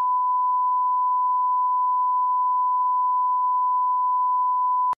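Steady line-up test tone that accompanies colour bars: a single unwavering beep at one pitch and constant level, cutting off suddenly near the end.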